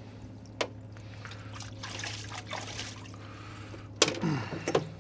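Diesel trickling in a parts washer over a steady low hum, with scrubbing on a shock part, a small click, and a sharp clink about four seconds in.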